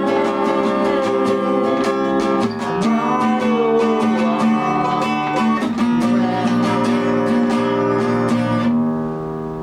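Acoustic guitar strummed in a steady rhythm, playing the closing chords of the song. The strumming stops near the end and the last chord rings out.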